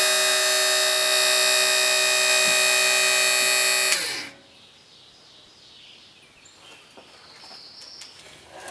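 Electric motor whining steadily with a strong, even pitch, lowering the bandsaw mill's saw head. It cuts off a little after four seconds in, the pitch sliding down briefly as it stops.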